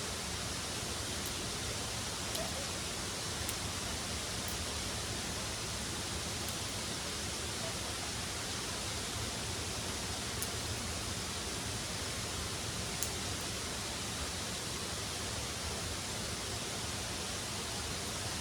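Steady, even rushing of a waterfall, with a few faint high ticks here and there.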